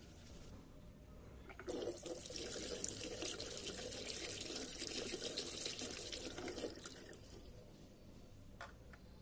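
Water running and splashing, starting suddenly about two seconds in, holding steady, then fading away a few seconds later.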